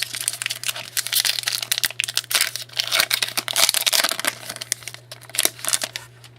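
Foil wrapper of a hockey card pack being torn open and crinkled, a dense irregular crackling that is busiest in the middle and thins out near the end.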